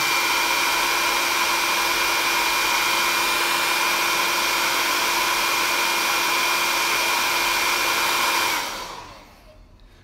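Handheld hair dryer blowing steadily, a rushing air noise with a thin high whine over it, switched off near the end and dying away over about a second.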